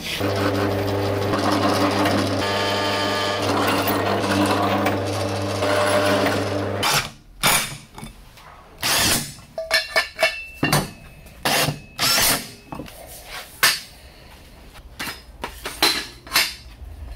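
Pedestal drill motor running steadily for about seven seconds, then stopping abruptly. After that, a string of short sharp knocks and brief bursts from a cordless impact driver working a bolt in steel pipe and steel parts being handled.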